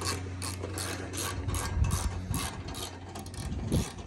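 Hand ratchet wrench clicking in quick, even strokes, about five clicks a second, as a roof-rack mounting bolt is tightened.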